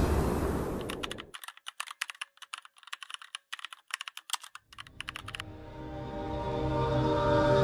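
Keyboard-typing sound effect: a fast, uneven run of clicks lasting about four seconds, after a rumbling whoosh fades out in the first second. Music then swells in with several sustained tones, growing steadily louder toward the end.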